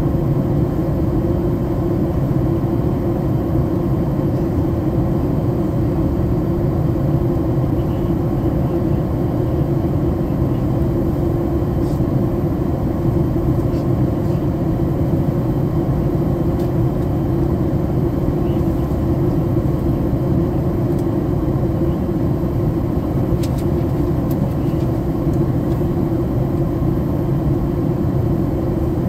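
Steady airliner cabin noise: an even low rumble and rush of air from the engines and airflow around the fuselage, unchanging throughout.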